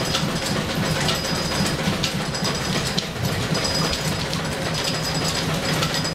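Flat-belt-driven drill press and overhead line shafting running: a steady mechanical clatter with scattered light clicks.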